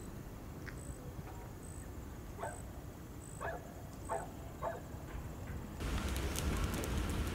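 A few short, faint animal calls spaced about a second apart, then from about six seconds in a wood fire crackling with sharp pops.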